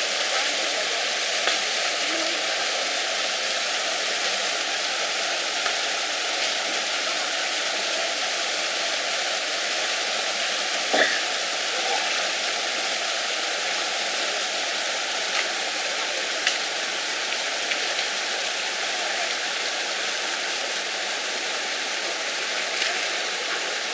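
Steady rush of a stream flowing over rocks, with a few faint knocks and one sharper knock about eleven seconds in.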